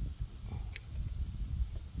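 Handling noise from hand work on an ATV: low irregular thumps and rumble, with one sharp click about three quarters of a second in.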